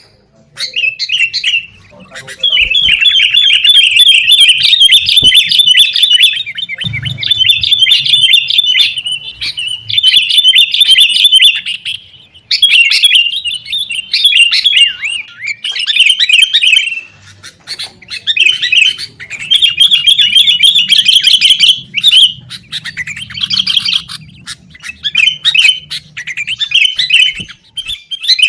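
Sooty-headed bulbuls calling in rapid, chattering runs of notes that stop and start every few seconds: the agitated, noisy calling of excited or sparring birds.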